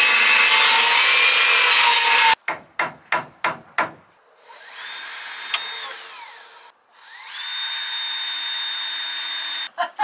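Power saw cutting wood, a dense loud rasp that stops abruptly after about two seconds, followed by a handful of quick strokes. The saw's motor then spins up to a high steady whine and winds down, and a second later spins up again and runs free.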